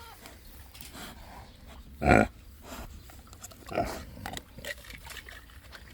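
A pig gives a short, loud call about two seconds in and a smaller one near four seconds while it goes after a broken egg, with faint rustling in between.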